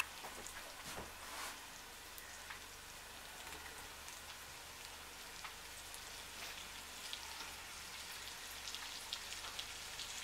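Onions frying in bacon grease in a stainless steel pot: a faint, steady sizzle with scattered small pops and crackles.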